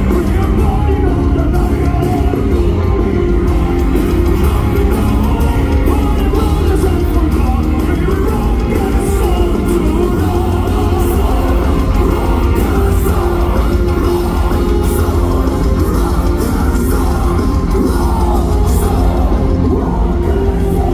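Live power metal band playing at full volume, with distorted guitars, drums and vocals, heard from among the audience in a large reverberant hall.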